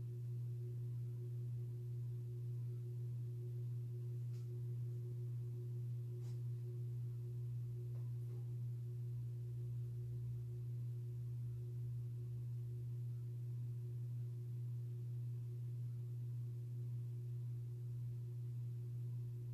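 Steady, unchanging low electrical hum, with a few faint clicks a few seconds in.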